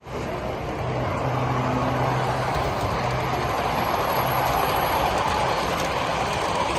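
Model freight train rolling past close by, its boxcar wheels rumbling steadily on the rails, with a low hum in the first few seconds.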